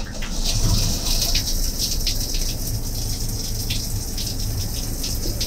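Motorhome shower running: a steady hiss of water spraying into the small shower stall.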